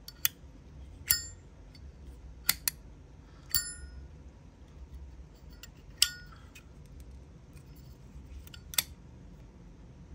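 Zippo lighters being handled: about seven sharp metallic clicks and clinks at uneven intervals, several with a short bright ring after them.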